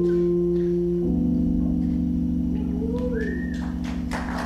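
Live band holding the sustained closing chord of a song, moving to a new held chord about a second in. Audience applause breaks out near the end.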